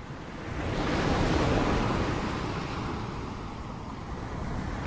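Ocean waves washing in: a rushing surge that builds about a second in, slowly ebbs away, and begins to swell again at the end.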